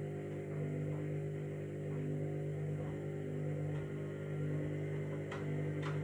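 Candy front-loading washing machine's motor and drum running steadily during a slow intermediate spin with a load of bedding, a steady hum with a slight regular pulsing. The machine is holding a low spin speed because it can't handle a faster one with this load. A couple of faint ticks near the end.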